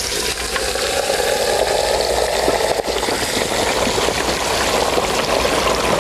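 Deep-frying oil at 350 degrees bubbling and crackling steadily around a whole turkey just lowered into a tall stockpot fryer.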